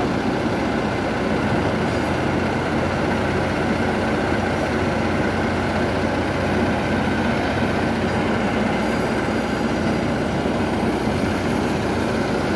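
Heavy diesel machinery engines running steadily at close range, a continuous loud mechanical drone with a low hum.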